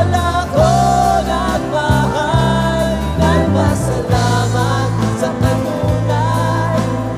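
Worship band performing a Cebuano praise song: a male lead singer with backing harmony voices over acoustic guitar, electric bass and keyboard.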